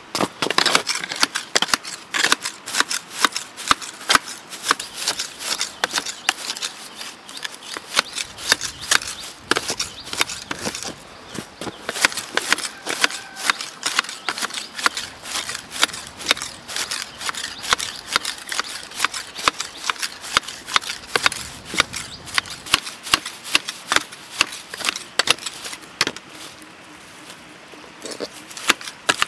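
Long-handled garden shears snipping grass: many sharp blade snips in quick succession as the blades close again and again on the grass.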